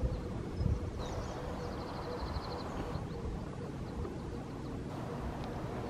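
Wind rumbling on the microphone, strongest at the start, over a steady distant hum. A small songbird sings high, rapid trills about a second in.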